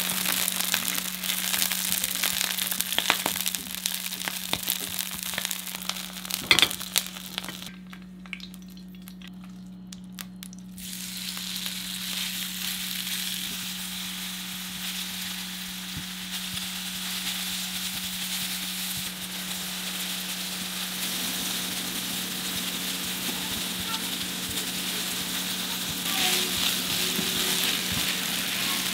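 Green onion pieces sizzling in hot oil in a nonstick frying pan, turned with tongs that click against the pan, one sharp clack among them; after a short quieter break, beef strips sizzle steadily as they fry and are spread and turned, the sizzle slowly getting louder. A steady low hum runs underneath.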